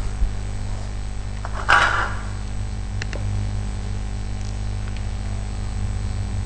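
Steady low hum and room noise of the recording. A brief soft noise comes about two seconds in, and a faint click about a second later.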